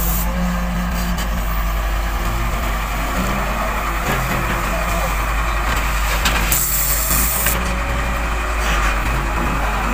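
Heavy diesel engines of an excavator and a dump truck running steadily while earth is loaded. A sharp hiss of air lasts about a second, roughly six and a half seconds in.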